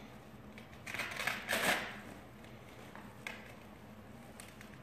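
Brief rustling and scraping handling noises, loudest about a second and a half in, then a single light click a little past the three-second mark.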